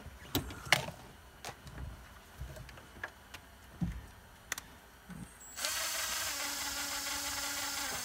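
A few light clicks and knocks of bolts and tools being handled. About five and a half seconds in, a Milwaukee M18 cordless drill starts and runs steadily, spinning a socket to run down a shifter mounting bolt.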